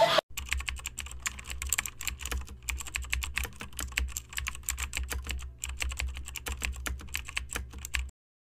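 Rapid keyboard typing clicks over a low hum, a typing sound effect that goes with text being typed out on screen; it stops suddenly near the end.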